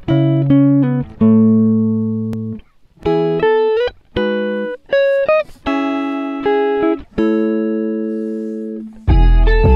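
Background music: a guitar playing slow picked notes and chords, some notes sliding up in pitch, with a deep bass coming in near the end.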